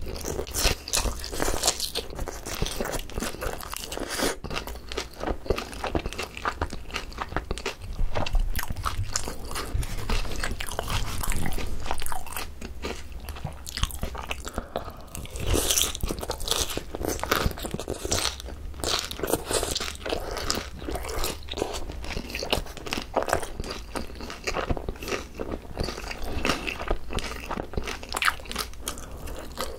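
Close-miked crunching and chewing of Korean fried chicken with shredded green onions (pa-dak): a steady run of crisp, irregular bites and chews.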